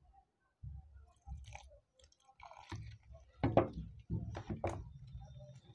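A hand mixing gram flour with chopped onion, green chillies and coriander leaves in a bowl: irregular rubbing, squeezing strokes, the loudest a few about three and a half to five seconds in.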